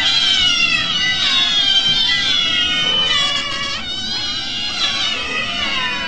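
A crowd of kittens meowing all at once: many high-pitched mews overlapping without a break.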